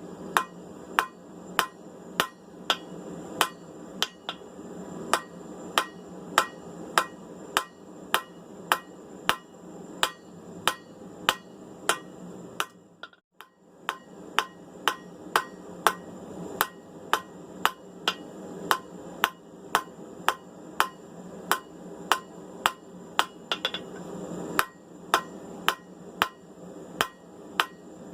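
Hand hammer striking hot steel bar stock on an anvil in a steady rhythm of about two blows a second, drawing the bar down to a square. The blows stop for a moment about halfway through.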